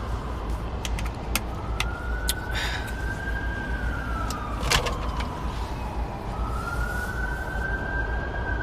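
Emergency vehicle siren wailing, a single tone slowly rising and falling in long sweeps, heard from inside a moving car over steady low road rumble, with a few sharp clicks.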